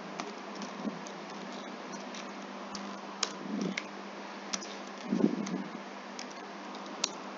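Computer keyboard keys clicking at an irregular pace as code is typed, over a steady low hum and hiss.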